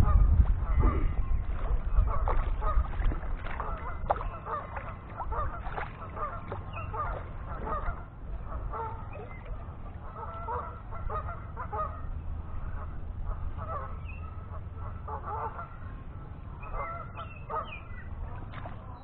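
Geese honking repeatedly in short calls throughout, over a low rumble that is loudest at the start and fades over the first few seconds.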